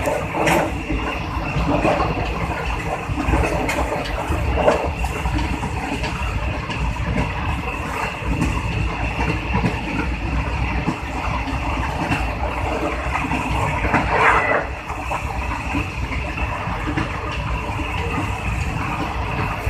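Train running along the track, heard from the rear car: a steady rumble and rattle of wheels on rail, with a few brief louder clatters, the loudest about fourteen seconds in.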